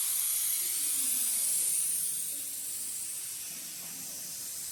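Air hissing out of a car tire's valve stem as the tire is let down flat, the hiss steady and then easing off slightly as the pressure drops.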